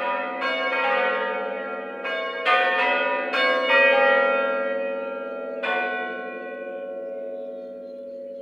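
Church tower bells being rung full-circle by a band of ringers on ropes: separate strokes, roughly one every half second to a second, each leaving a long ringing hum. The last stroke falls about two-thirds of the way through, and the bells' hum then slowly fades.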